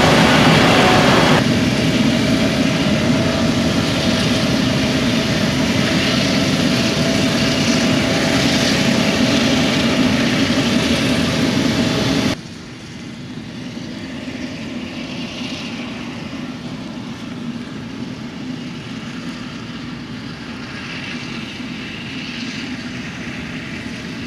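Claas Jaguar 970 self-propelled forage harvester running close by while chopping maize: a loud, steady machine noise with a constant whine. About twelve seconds in it cuts to quieter, steadier machinery noise from the harvesting rig working farther off.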